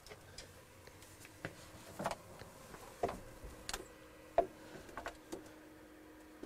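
Scattered light clicks and knocks of handling, with a small dehumidifier's fan humming faintly and steadily from about three and a half seconds in.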